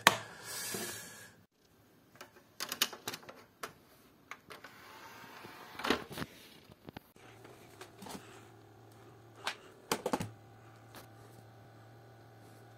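Sharp plastic clicks and rattles of a Blu-ray disc being taken out of its case and loaded into a Sony Blu-ray player. The clicks are scattered and the loudest comes about six seconds in. A steady low hum starts about seven seconds in.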